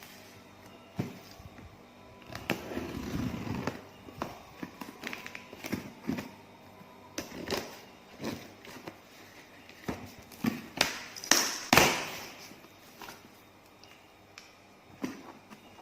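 Handling sounds: irregular knocks and clicks with a short stretch of rustling, and the loudest sharp clicks near the end.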